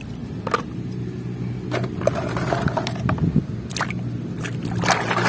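Plastic toy vehicles clicking and knocking together as they are handled, then a toy swished through muddy water with splashing near the end, over a steady low hum.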